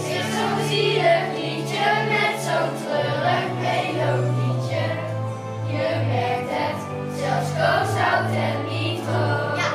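Children's choir singing a song together over an instrumental accompaniment with sustained bass notes.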